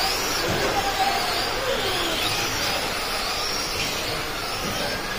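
Tamiya Euro truck racing trucks' electric motors whining as the trucks race, the pitch rising and falling as they speed up and slow down through the corners, over a steady hum of running motors.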